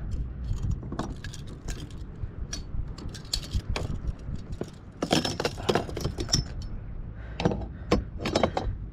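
Metal fishing tackle jangling and clinking as the catch is handled, with bunches of sharp clicks about five seconds in and again near eight seconds, over a steady low rumble.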